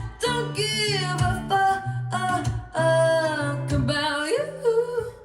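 Pop song playing: a woman's voice singing long held notes over guitar.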